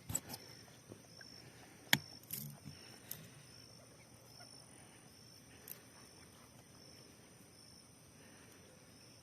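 Quiet outdoor ambience: a faint high chirp repeats about once a second, with a few sharp clicks, the loudest about two seconds in.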